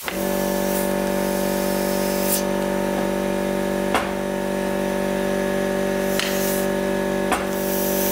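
Compressed air from an airline blow gun forced into a Brembo six-piston brake caliper to push the pistons out against a wooden block: a loud steady hiss with a humming tone. A couple of sharp knocks come about four seconds in and again past seven.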